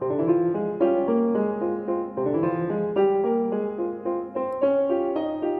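Piano music: a melody of separate notes stepping up and down over held lower notes.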